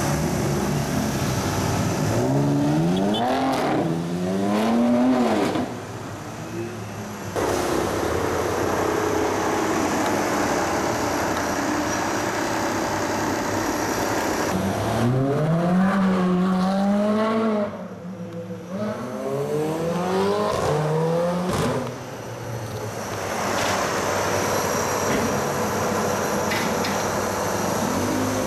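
Sports car engines accelerating hard along a city street, with steady traffic noise between. Twice the pitch climbs, drops at a gear change and climbs again: once a couple of seconds in, and again from about halfway to about three-quarters of the way through.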